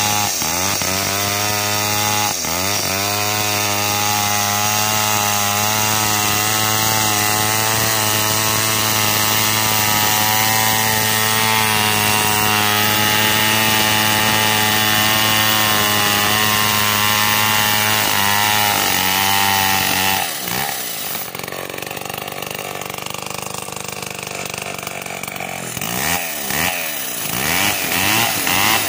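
Stihl two-stroke chainsaw with a 36-inch bar ripping coconut lumber lengthwise at full throttle, the engine pitch dipping and recovering twice in the first few seconds. About two-thirds of the way through it drops back to a quieter, lower running, then is revved in short blips near the end.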